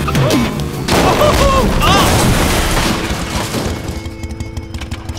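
Animated motorcycle stunt gone wrong: the motorbike runs through a wheelie, then a loud crash into bins and cardboard boxes, with the rider crying out. Music plays underneath.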